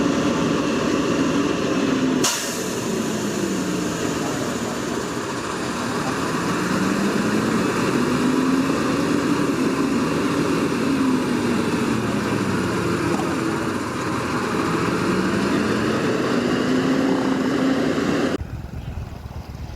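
Heavy truck's diesel engine running, its pitch rising and falling slowly again and again as it revs up and down under load. It cuts off abruptly near the end to a quieter background.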